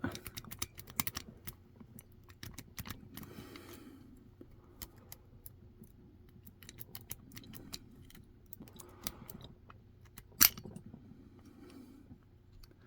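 Lock-pick rake scraping and clicking against the pins inside a Britanium shutter lock's cylinder, worked with no tension wrench. Irregular light metallic ticks and scratches, with one sharper, louder click about ten seconds in.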